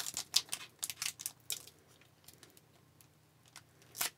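Quick rustling and light clicking of a foil trading-card pack being handled in the fingers, then a short crinkle as the wrapper's top starts to tear near the end.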